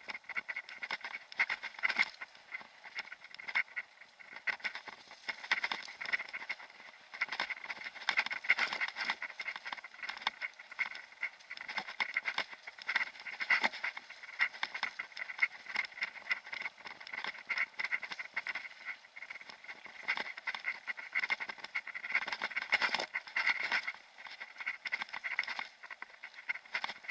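Mountain bike rolling fast over a gravel forest track: an unbroken, uneven clatter of tyres on gravel and the bike and camera mount rattling over bumps, thin and without bass.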